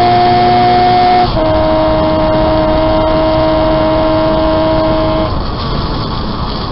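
Homebuilt three-cylinder 195cc racing motorcycle engine running hard at high revs, a steady high-pitched note. About a second in the pitch steps down once, as with an upshift, then holds. About five seconds in the note falls away to a rougher, quieter sound as the throttle is closed.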